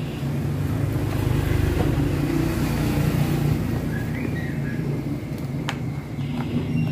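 A motor vehicle engine running steadily nearby, a low hum that swells slightly about a second in. A single sharp plastic click comes near the end as the panel over the motorcycle's fuel pump is pried loose.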